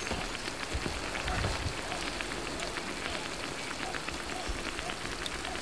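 Ripe banana fritters shallow-frying in hot oil in a non-stick frying pan: a steady sizzle thick with small crackles and pops of spattering oil.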